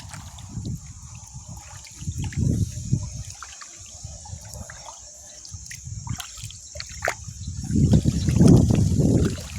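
Shallow water sloshing and trickling in irregular swells, as from wading or moving through the water, growing louder near the end. A steady high-pitched insect trill of the night runs behind it.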